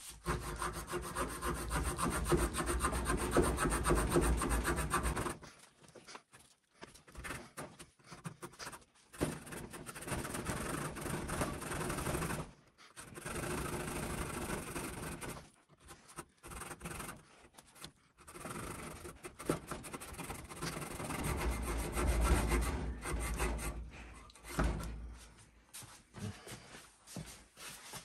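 Folding saw blade of a Mikov Praktik pocket knife rasping back and forth through a fresh branch clamped in a vise, in runs of strokes broken by several short pauses. The blade is one the owner found dull and prone to jamming in the cut.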